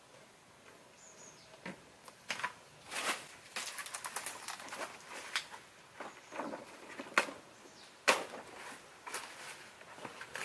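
Footsteps on a leaf-strewn dirt path, then large banana leaves being pulled and torn from the plant, rustling and snapping in irregular sharp crackles.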